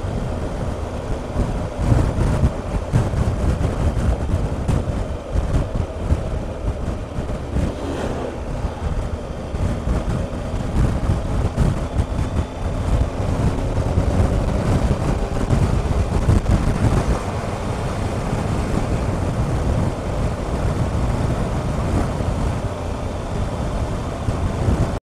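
Wind buffeting the microphone at road speed over a Triumph Explorer's three-cylinder engine pulling steadily underneath.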